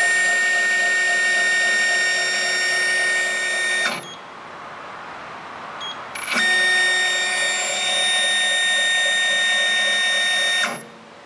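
The X-axis drive of a Dynamyte 3000 CNC lathe jogging the cross slide and tool turret: a steady, high-pitched motor whine that runs for about four seconds, stops, and after a short beep from the control runs again for about four seconds.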